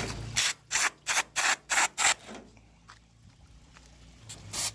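Expanding spray foam squirted from a can in short hissing spurts, about three a second, six in a row, then a pause before the spurts start again near the end.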